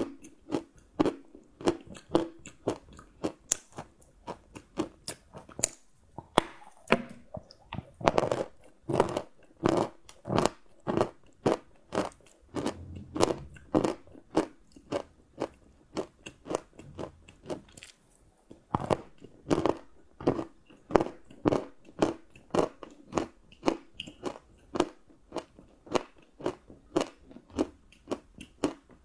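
Close-up chewing of crunchy chocolate: a steady run of sharp crunches, about two to three a second, as the pieces are bitten and chewed.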